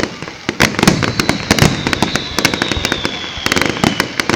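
Fireworks display: a rapid, dense string of bangs and crackles from bursting shells, with a high whistle gliding slowly down in pitch through the middle.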